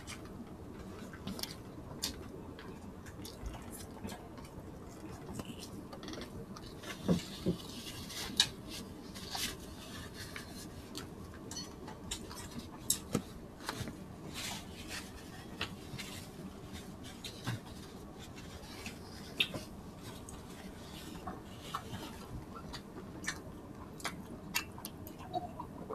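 Eating mouth sounds on a close microphone: scattered short smacks and clicks from chewing and licking fingers, over a faint steady background hum. A few of the smacks are louder than the rest.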